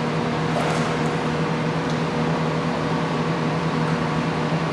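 Steady machine hum and hiss from the pool room's equipment, with a few faint splashes of water as the dog paddles.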